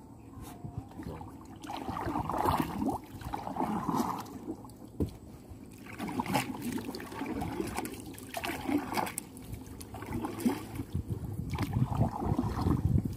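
Irregular sloshing and splashing of water, coming in uneven swells every second or two.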